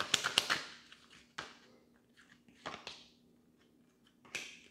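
Tarot cards being shuffled by hand: a quick run of card clicks that stops about half a second in, then three single short card snaps spread through the rest as cards are pulled from the deck.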